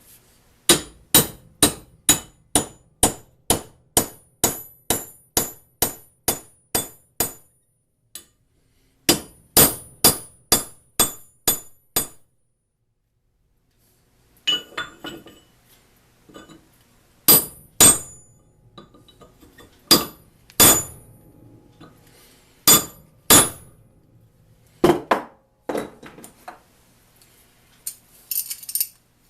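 Hammer striking steel while heading a rivet: sharp, ringing blows about two a second, a second run of them, then a brief stop. After that come scattered light clinks and a few pairs of heavier strikes.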